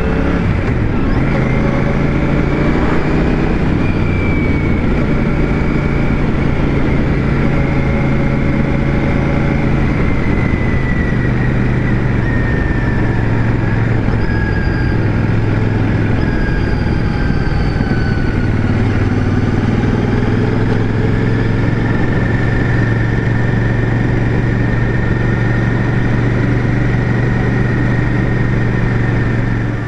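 Royal Enfield Shotgun 650's parallel-twin engine running while the bike is ridden, its note shifting in pitch a few times as the speed changes, over steady road and wind noise.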